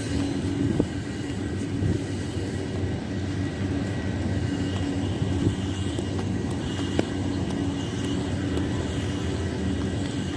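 Large tea-factory withering fans running with a steady mechanical hum, blowing air through the tea leaves to dry out their moisture.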